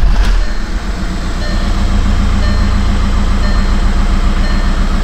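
Car starter cranking the engine steadily, with a rhythmic throb of about six or seven pulses a second, without the engine catching. A door-open warning chime repeats about once a second over it.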